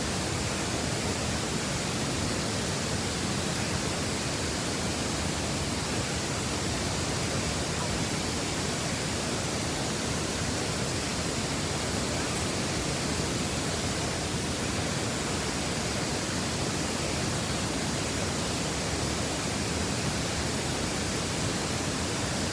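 A waterfall's water rushing steadily, an even, unbroken roar of falling water.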